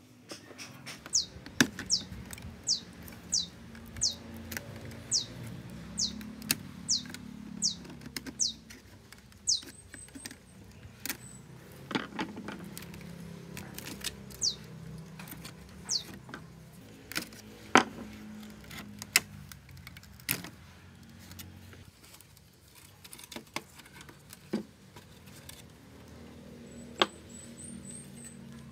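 Scattered clicks and knocks of plastic and metal parts and tools being handled while a Sony CK-11 boombox is taken apart and its speakers are lifted out. A high, quick falling chirp repeats about every half second for the first nine seconds or so.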